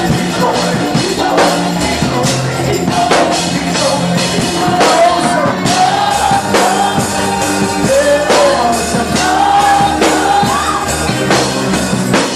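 Live gospel praise music: a band with drum kit and bass plays while a voice sings a wavering melody over it.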